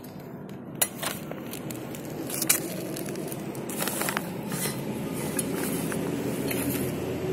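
Crumbly goat-manure fertiliser being sprinkled by hand onto the soil of a plastic polybag planter, with soft scattering and two sharp clicks. A low steady vehicle engine hum grows louder in the background from about halfway through.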